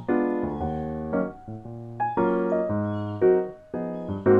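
Background music: a keyboard melody of short notes stepping up and down, with a low bass line underneath.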